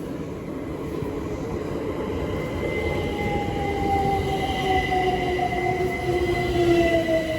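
Electric multiple-unit passenger train pulling into the station and slowing, its motor whine falling steadily in pitch over the rumble of wheels on the rails, growing louder toward the end.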